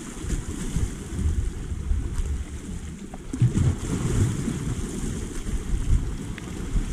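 Wind buffeting the microphone in gusts, over the steady hiss of small waves washing against shore rocks.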